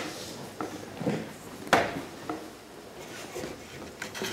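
Movement noises of people walking about and handling papers: shuffling and rustling with a few scattered soft knocks, the sharpest just under two seconds in.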